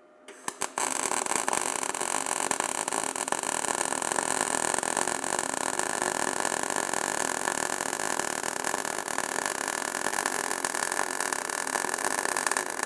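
MIG (gas metal arc) welding arc on steel: it strikes with a few quick pops under a second in, then crackles steadily.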